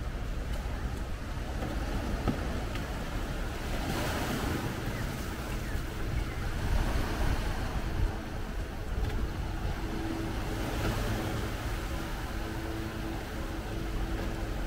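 Ocean surf washing onto a sandy beach, swelling and easing, with wind buffeting the microphone. A faint steady hum joins about nine seconds in.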